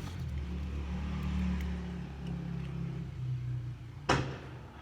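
A low steady hum, with one sharp crackling pop from the slime being squeezed about four seconds in.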